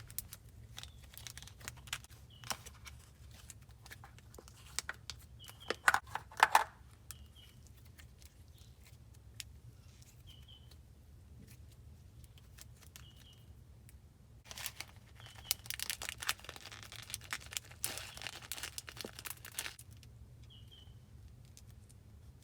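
Slime being squeezed and handled, with scattered sticky clicks and crackles, a louder crackly burst about six seconds in and a longer stretch of dense crackling from about fourteen to twenty seconds.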